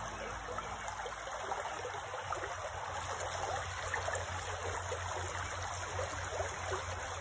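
Shallow creek flowing over stones: a steady rush of running water.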